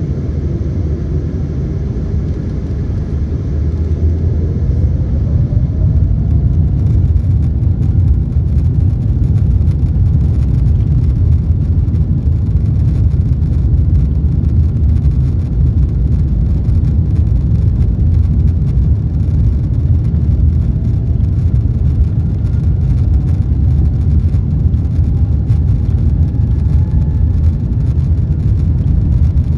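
Boeing 747-8's four GEnx engines heard from inside the cabin beside a window, spooling up for takeoff: a rising whine and growing loudness over the first several seconds. Then a loud, steady, low rumble of the engines at takeoff thrust and the roll down the runway.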